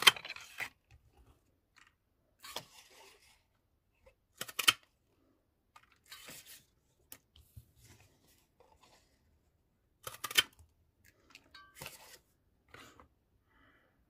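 Stampin' Up! foliage craft punch snapping through green cardstock to cut out leaf sprigs: three sharp punches, at the start, about four and a half seconds in and about ten seconds in. Softer rustles and clicks of the card being handled come between them.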